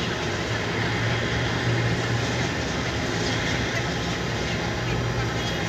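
Steady jet aircraft noise: an even rushing hiss over a low, constant hum.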